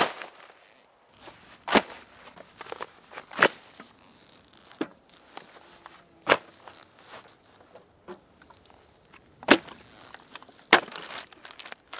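Camping gear being handled and dropped onto the ground: a string of sharp clicks and knocks a second or two apart, with soft rustling between.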